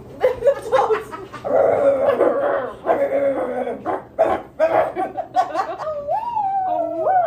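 Young women laughing and chattering. From about six seconds in, a simple tune of held notes stepping up and down begins.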